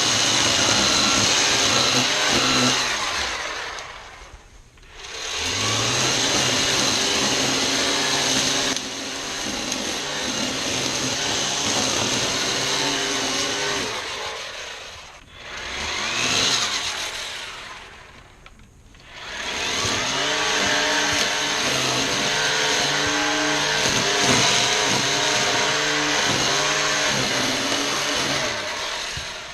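ECHO 58-volt battery string trimmer running at speed, its motor and spinning line making a steady whine as it cuts tall weeds and grass. Twice it winds down nearly to a stop and spins back up: a few seconds in, and again in the middle with a brief burst before it picks up.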